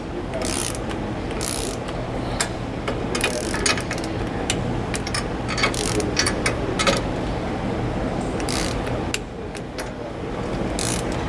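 Socket ratchet clicking in short bursts as the U-bolt nuts on a steering stabilizer's axle bracket are tightened a little at a time, over a steady low hum.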